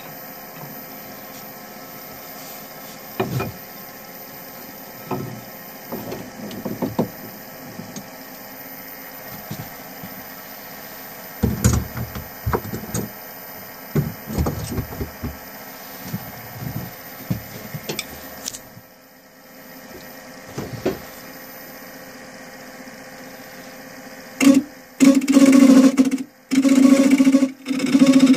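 Turning tools knocking and clattering as they are handled and laid on a metal wood-lathe bed, over a steady low hum. Near the end a turning tool is pressed against the spinning wooden bowl blank, cutting in loud bursts with a steady buzzing tone and short breaks.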